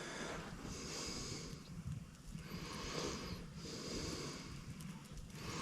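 A person breathing close to the microphone: three or four soft, even breaths.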